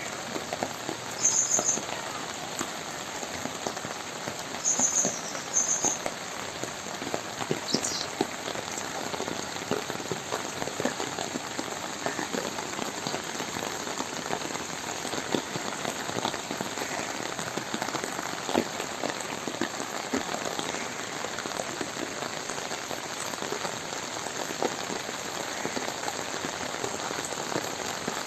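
Steady rain falling, a dense patter of drops on the ground and water. A few brief high-pitched chirps stand out in the first few seconds.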